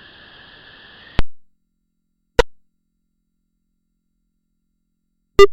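A faint steady hiss with a thin high tone is cut off by a sharp click. Two more sharp clicks follow, about one and four seconds later, each dying away quickly.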